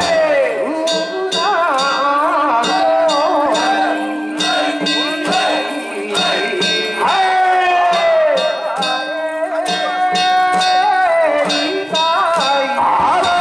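Danjiri festival hayashi music: metal gongs and drums struck in a quick, steady rhythm, with a wavering melody line carried over it.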